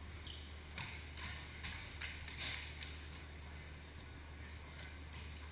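Indoor volleyball rally: a quick run of short sharp knocks and slaps from the ball being played and players moving on the court, from about a second in to about three seconds in. A steady low hum of the large hall runs underneath.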